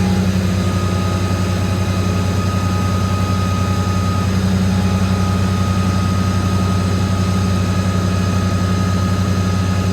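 A machine's motor running steadily with a constant low hum and a few faint higher tones.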